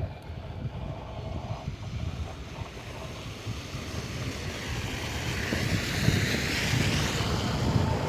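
Wind buffeting the microphone, with the hiss of a vehicle's tyres on a snowy, wet street swelling up through the second half as it passes.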